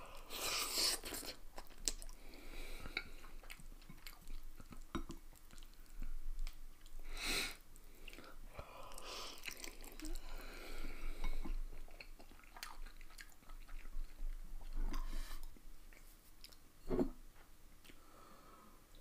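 A person slurping and chewing saucy instant noodles, with a few long slurps and wet mouth sounds.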